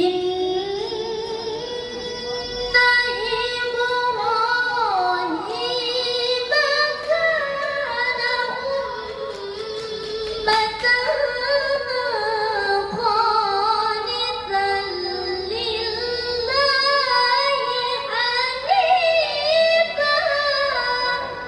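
A young woman reciting the Qur'an solo in the melodic tilawah style, one long, wavering, ornamented phrase after another, her voice amplified through a handheld microphone.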